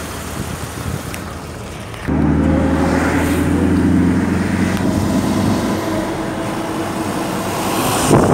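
Car engine and road noise heard from a moving car with the window open. About two seconds in, a louder engine drone with a steady low hum sets in suddenly and fades a few seconds later. A rush of passing traffic comes near the end.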